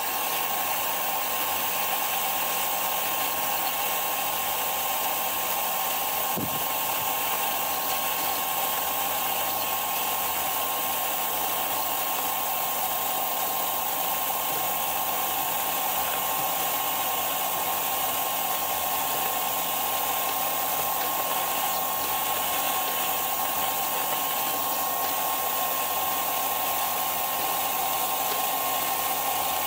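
Laser engraver running as it engraves a wooden blank: a steady whir of moving air from its fans, with a thin steady whine over it.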